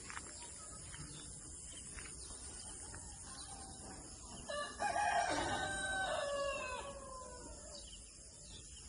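A rooster crowing once: a single call of about three seconds, starting about halfway through and falling in pitch at the end.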